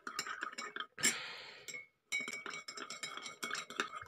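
Metal spoon clinking against the inside of a ceramic mug of warm water, stirring to dissolve salt: rapid repeated clinks with a short pause about two seconds in.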